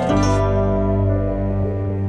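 Background music: a soft instrumental with held notes and no beat.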